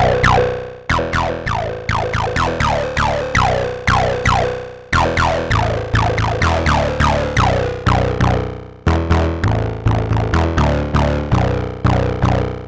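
IK Multimedia UNO Synth PRO X analog synth playing a sequenced bass line in its 303-style bassline mode, with analog drive on. Each short note has a resonant filter sweeping down, in a pattern that repeats about every four seconds, while the second filter's resonance is turned.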